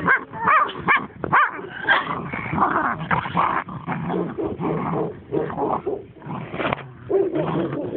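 A puppy growling and yipping during rough play.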